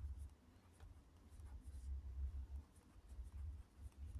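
Pen writing on squared paper: faint scratching strokes as figures and letters are written out, over a low steady hum.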